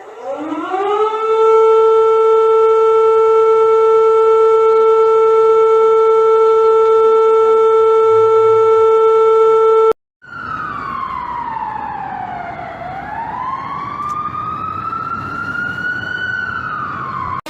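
Emergency alert siren tones. A siren winds up within about a second to a steady held note with a buzzy edge and cuts off suddenly about ten seconds in. After a brief break a second siren wails slowly down in pitch, back up, and starts to fall again.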